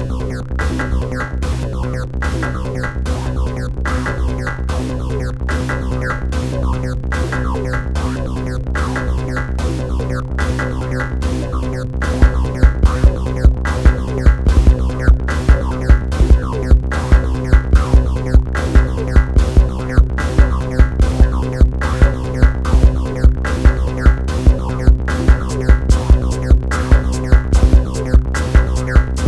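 Electronic music played on a Moog Sound Studio analog synthesizer and a Roland TR-6S drum machine: a sustained synth drone under a steady drum-machine beat. Louder hits join the beat about twelve seconds in.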